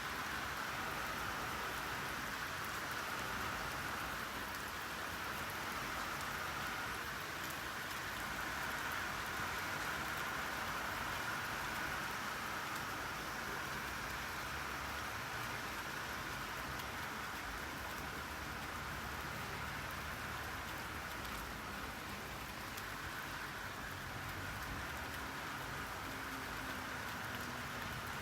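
Steady rainfall: an even hiss of rain with many small drops pattering on surfaces.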